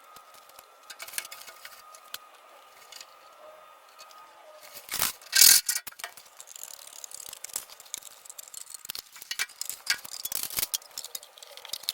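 Irregular clicks, taps and rattles from handling and fitting the gutter, with one loud scraping burst about five seconds in.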